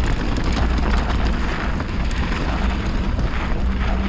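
Mountain bike descending a fast, rocky, loose gravel trail: tyres crunching over stones and the bike rattling with many small knocks, over a steady low rumble of wind on the microphone.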